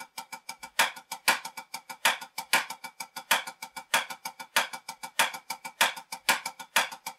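Wooden drumsticks playing a steady run of sixteenth notes on a small drum pad, about eight strokes a second, with louder accent strokes standing out in pairs roughly every second and a quarter among quieter taps.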